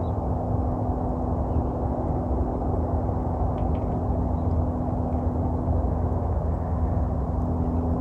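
Steady low motor hum over a continuous rumble, with a constant pitched drone, like an engine running nearby. A few faint, short high chirps sound over it now and then.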